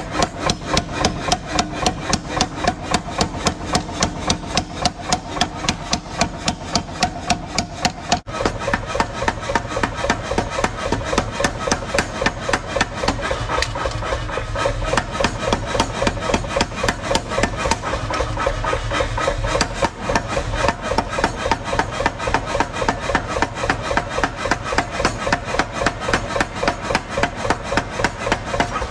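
Power hammer pounding a red-hot steel bar in rapid, even blows, about four a second, as the bar is drawn out into a blade.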